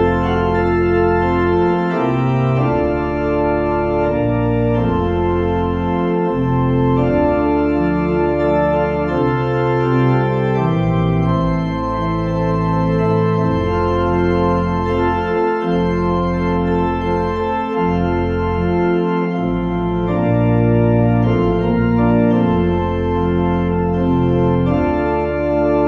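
Organ playing a postlude of sustained chords over a held bass line, the chords changing every second or two.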